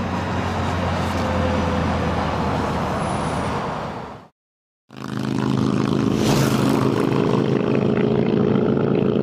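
Motorcycle engine running with a rush of wind and road noise. The sound cuts out for about half a second a little before halfway, then comes back as a steady, even engine note.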